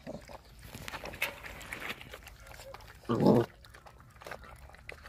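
Puppies eating cooked rice from a steel pot, with many small clicks of chewing and muzzles knocking the pot. About three seconds in there is one short, loud, low burst.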